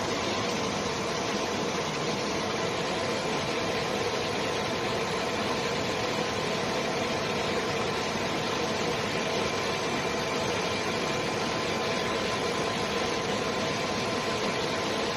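CNC laser cutting machine running: a steady hum and hiss, with a few faint steady tones held throughout.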